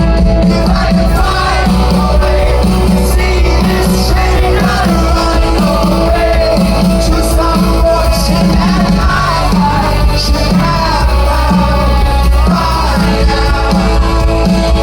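Live rock band playing loudly, with a sung lead vocal over guitars, bass and drums.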